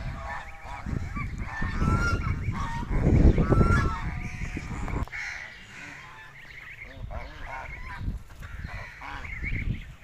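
Domestic geese honking repeatedly. A loud low rumble runs under the first half and stops abruptly about five seconds in.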